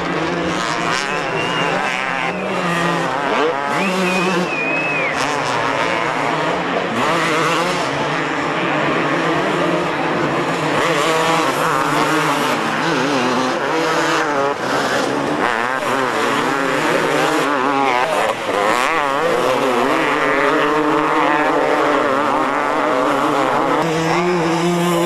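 Two-stroke motocross bike engines revving hard, their pitch rising and falling over and over as several bikes race past on the dirt track.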